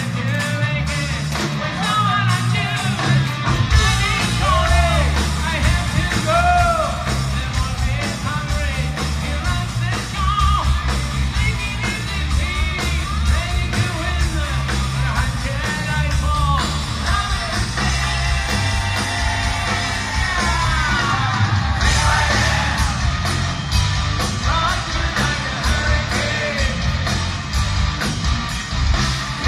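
Live hard rock band heard from the audience in a concert hall: drums, bass, distorted electric guitars and a male lead vocal. Heavier drums and bass come in about three seconds in.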